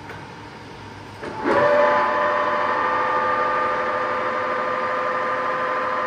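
TOS SN-71B universal lathe's geared headstock starting up about a second in, then running with a steady, loud whine of several pitches from the spindle and gears.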